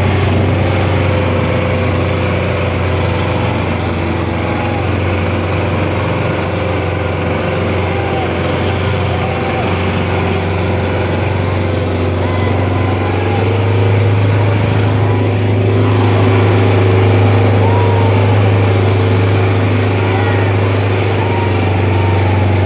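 Sonalika DI 750 tractor's diesel engine labouring under heavy load as it drags a harrow through soil, a steady low drone. It grows louder for several seconds past the middle.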